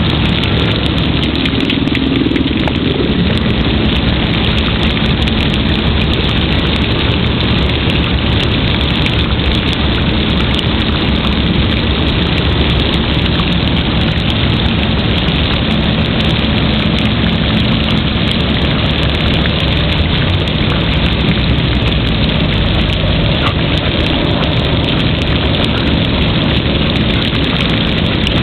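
Playground water sprinkler jets spraying and splattering onto wet pavement: a steady, loud hiss of falling water.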